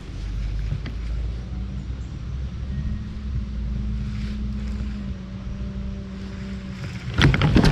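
Low steady hum of a boat motor under wind on the microphone, with a faint held tone in the middle. About seven seconds in, a sudden burst of loud splashing and knocking.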